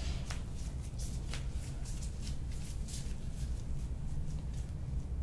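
Soft, irregular rustling and brushing of hands moving over a patient's body and clothing during hands-on treatment, over a steady low hum.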